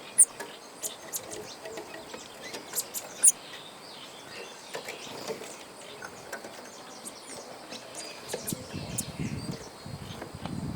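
Small birds chirping: many short, sharp, high chirps, the loudest two right at the start and about three seconds in, over a steady outdoor background. A low muffled rumble comes in near the end.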